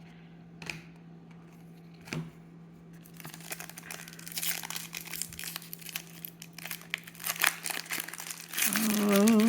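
Card pack wrapper being torn open and crinkled by hand, rustling on and off and getting louder toward the end, after two light taps of cards being handled.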